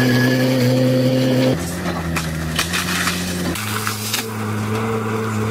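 Caterpillar hydraulic excavator's diesel engine running steadily, its pitch jumping abruptly about a second and a half in and again near the middle. From about a second and a half in, branches crack and snap as the excavator pushes through brush.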